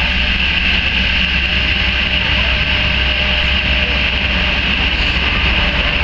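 Cessna 208B Grand Caravan's Pratt & Whitney PT6A turboprop running at low power while the aircraft taxis slowly: a steady high turbine whine over a low propeller drone.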